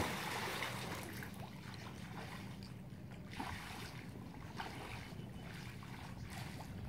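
Swimming-pool water splashing at the start and fading away, then gentle lapping and a few soft splashes from swimmers, over a steady low hum and some wind on the microphone.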